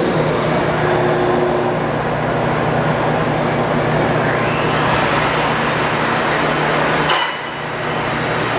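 Forrest Model 480 horizontal bandsaw running with a steady hum and hiss. About seven seconds in comes a single sharp metallic clank that rings briefly, and the hum dips for a moment after it.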